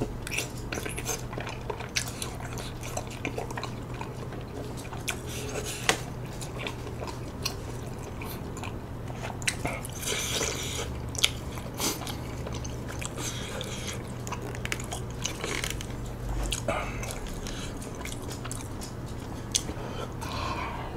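Close-up chewing and biting of chewy tteokbokki rice cakes and glass noodles, with scattered wet mouth clicks and a few sharp clicks. A steady low hum runs underneath.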